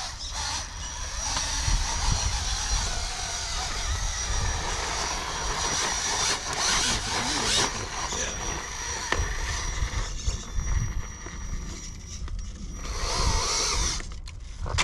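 Scale RC rock crawler's electric motor and drivetrain whining as it creeps and climbs over rocks, easing off briefly about ten seconds in.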